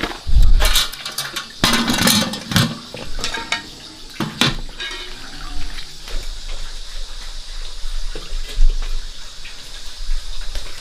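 Water splashing and running, with several knocks in the first few seconds, then a steadier rush.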